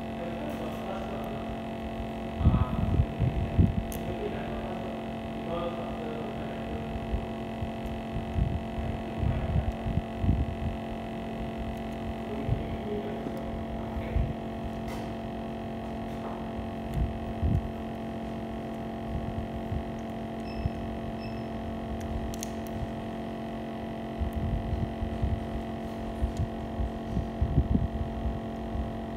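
Steady electrical hum with several fixed tones, broken by scattered dull low thumps and knocks.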